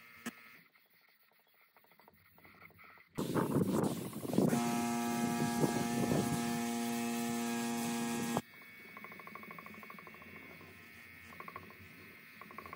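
A small electric motor buzzing at a steady pitch for about five seconds, starting and stopping abruptly, with rough scraping noise mixed in just after it starts; quieter handling noise follows.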